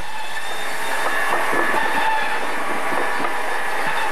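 Cider mill machinery running: a steady mechanical clatter from the apple conveyor and press equipment, with a faint steady hum.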